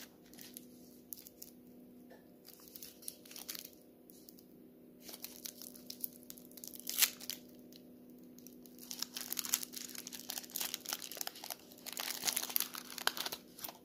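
Foil candy wrapper of a Merci Petits chocolate crinkling as its twisted ends are undone and it is peeled open by hand. The crackles come in short irregular bursts, with one sharp crack about halfway through, and grow denser near the end.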